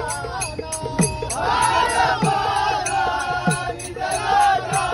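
Group of men singing a Marathi devotional bhajan, a lead voice joined by a full chorus of many voices about a second in, over a steady beat of small hand cymbals and a few low drum strokes.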